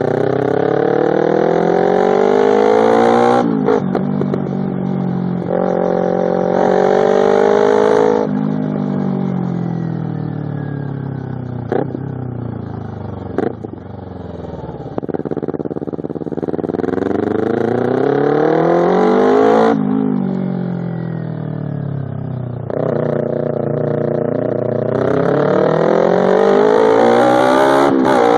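Kawasaki Ninja 250R's parallel-twin engine through a loud Two Brothers slip-on exhaust, accelerating through the gears on the road. The pitch climbs and drops sharply at each upshift, falls for several seconds as the bike slows in the middle, then climbs again near the end.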